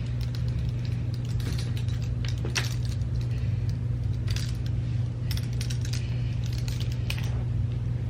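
Clothes hangers clicking and rattling against each other as they are handled, a scatter of light clacks, over a steady low hum.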